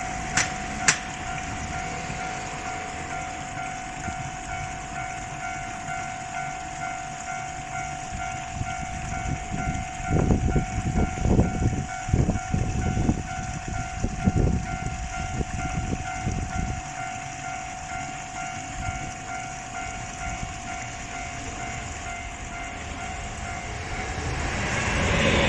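Japanese railroad crossing warning bell ringing steadily. A series of low thumps comes midway, and near the end the rising rush of an approaching train begins to build.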